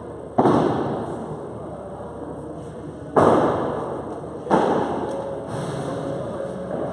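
Padel balls being struck: three loud sharp pops and a fainter fourth, irregularly spaced, each echoing through the large hall.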